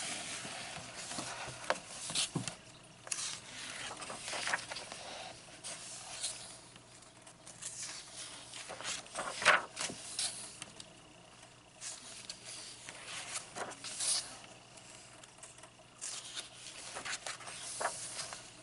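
Paper pages of a softcover coloring book being turned and smoothed flat by hand: continual rustling and crinkling with sharp page flicks, the loudest about halfway through.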